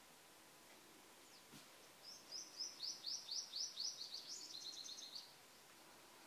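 A bird singing, starting about two seconds in: a run of high, down-slurred notes, about four a second, that breaks into a faster trill for its last second before it stops.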